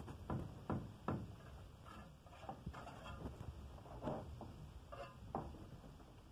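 Bricklaying work sounds: a string of short, irregular scrapes and taps of a steel trowel on mortar and clay brick.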